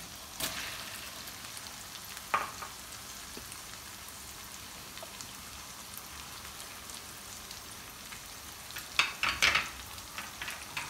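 Chopped tomatoes dropping into hot oil and onions in a karahi, setting off a surge of sizzling that settles to a steady sizzle. A metal spatula clinks on the pan about two seconds in and stirs, with a few sharp knocks and scrapes near the end.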